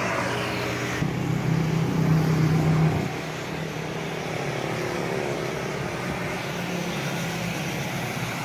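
Street traffic: a passing motor vehicle's engine hums louder from about one to three seconds in, then settles into a steadier, quieter traffic noise.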